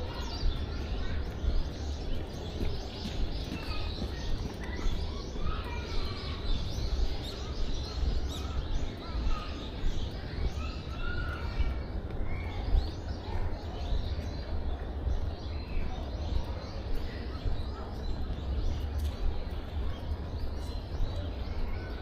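Outdoor ambience of birds chirping and calling on and off, over a constant low rumble.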